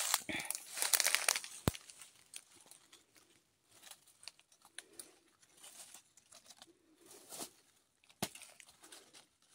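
Dry leaves and undergrowth rustling and crackling under hands working the ground, loudest in the first second and a half, then in softer intermittent bursts. A sharp click sounds a little under two seconds in and another near the end.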